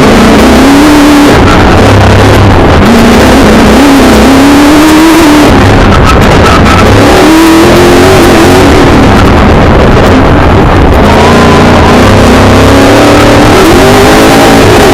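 Milner R5 racing car's 5-litre V8 engine heard from inside the car, driven hard with the revs rising and falling again and again, under heavy road and drivetrain noise. The recording is very loud throughout.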